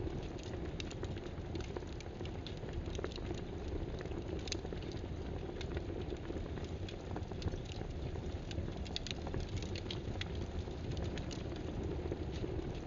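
Steady rain-like hiss with many light, irregular clicks scattered throughout.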